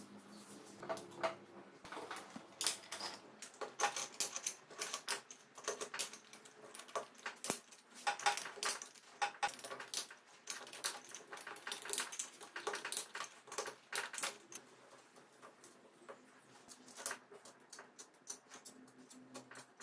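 Irregular metallic clicks and clinks of a socket wrench and steel parts against the aluminium crankcase of a Honda CBR250 MC22 engine as it is reassembled by hand.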